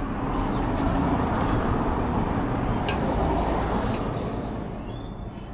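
A vehicle passing on the road. Its engine and tyre noise swells over the first second, holds, then fades away over the last couple of seconds.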